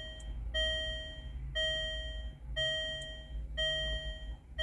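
Land Rover LR2's warning chime sounding over and over, about once a second, each a steady tone lasting nearly the full second, with a low hum beneath.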